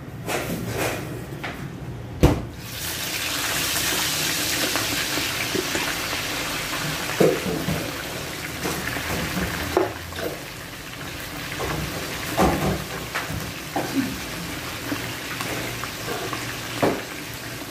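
Shrimp coated in cornstarch deep-frying in hot oil in a wok: a steady, loud sizzle that swells a couple of seconds in as the shrimp go into the oil. A sharp knock about two seconds in and scattered clinks of a metal spatula against the pan.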